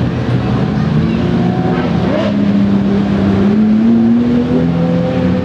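Several supercar engines running together as the cars pull away slowly, with a few pitches overlapping and gliding gently up and down.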